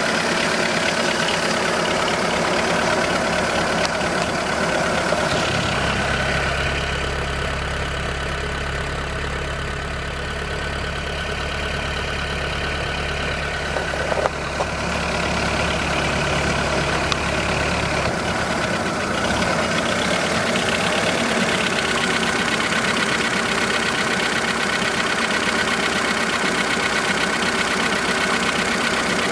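2005 VW Polo 1.4 engine idling steadily with a rapid clicking in its running, the unidentified noise the owner is asking about. A deeper hum joins from about six seconds in until about eighteen seconds, and there is one sharper click about fourteen seconds in.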